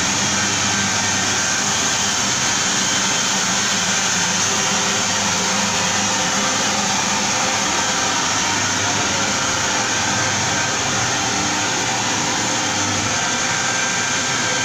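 Walk-behind floor scrubber dryer running steadily as it is pushed along: a constant motor drone with a steady high whine.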